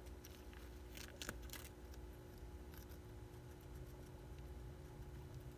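A hamster nibbling a lettuce leaf: a few faint, crisp crunches bunched together about a second in, with a couple more scattered after.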